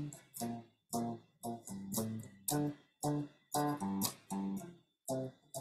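Electric guitar playing a choppy riff of short chord stabs. Each strum is cut off quickly, leaving brief gaps, at roughly three stabs a second in a syncopated rhythm.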